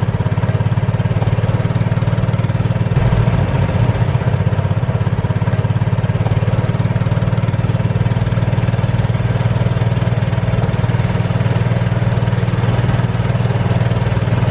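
Small engine of a golf cart running steadily while it drives along a road.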